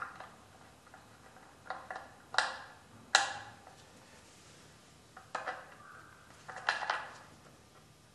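Screwdriver and small metal fittings clinking against a wooden sewing-machine drawer part's metal bracket: several sharp, short clinks at uneven intervals.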